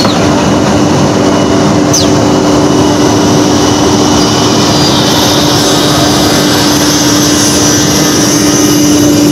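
Plywood double sizer machine and its dust extraction running: a loud, steady mechanical drone with a constant hum. About two seconds in there is a short high squeal sliding down in pitch.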